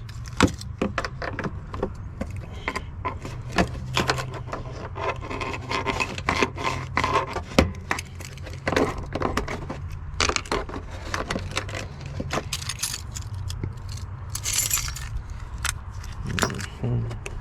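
A key ring jangling and a car key clicking and scraping against plastic parts, used as a pry tool to work a retaining clip free behind the headlight. A steady low hum runs underneath, with a short, sharper scrape about three-quarters of the way through.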